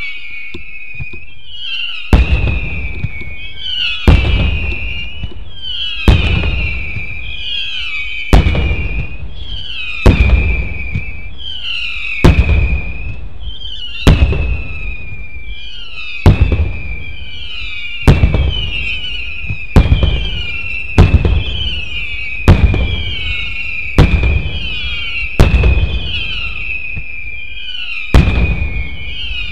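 Fireworks single shots with whistling tails going off in a steady string. There is a sharp bang roughly every two seconds, starting about two seconds in and coming quicker near the end, with high whistles falling in pitch between the bangs.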